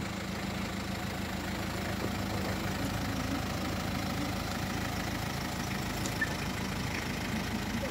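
Diesel engine of a Hyundai H-100 pickup truck idling steadily while the truck stands still.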